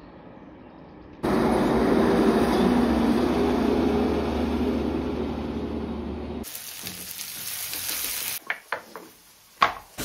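A loud steady noise with a low hum starts suddenly about a second in and stops abruptly about five seconds later. Then food sizzles frying in a pan on a gas stove, with a few sharp knocks of a spatula in the pan near the end.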